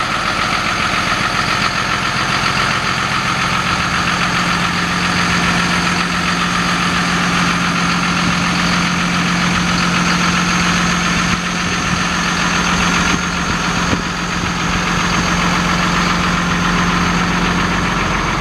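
Diesel engine of a 2018 Hino 258 tow truck idling steadily, an even hum that holds the same pitch.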